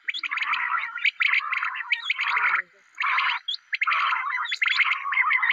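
Birds chattering in rapid, bubbly bursts of calls, each burst about half a second to a second long, with short gaps between them.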